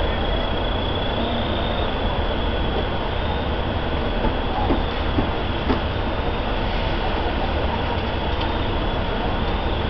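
Steady, loud mechanical rumble of fire apparatus running at the scene, most likely a fire engine's diesel driving its pump to feed the hose lines, with a faint thin whine held above it.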